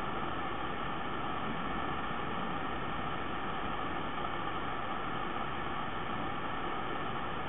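Steady hiss of background noise at an unchanging level, with no breath, snore or gasp standing out from it.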